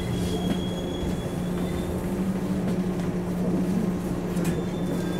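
Inside a stopped JR 113-series electric train carriage: a steady low hum with a second, higher tone above it, while another 113-series train draws up and halts on the next track. A thin high whine fades out about two seconds in.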